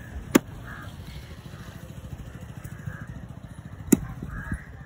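Two heavy cleaver chops into fish on a wooden log chopping block, a sharp knock each, the second about three and a half seconds after the first, over a steady low rumble.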